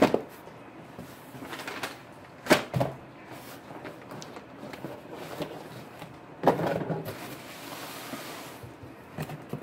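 Boxes of candy and packaging handled in a cardboard shipping box: a few knocks and thuds as boxes are moved and set down, the sharpest about two and a half seconds in, with cardboard and plastic rustling between.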